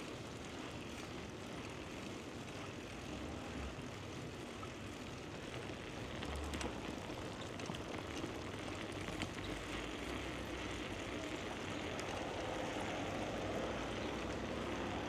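Steady rushing wind noise on a chest-mounted action camera during a bicycle ride, with a few low buffets and faint ticks from the bike. The noise swells slightly about halfway through.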